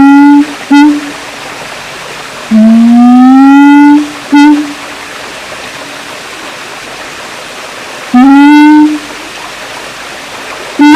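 Siamang calling: long hoots that rise slowly in pitch, the first ending about half a second in and the second about three to four seconds in, each followed by a brief short note. A shorter rising hoot comes about eight seconds in, with a steady hiss between the calls.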